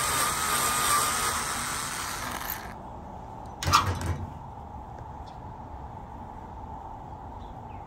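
Power drill driving a 1/4-inch nut driver to back out a screw, its motor whining with a wavering pitch for about two and a half seconds, then stopping. A short clatter follows about a second later.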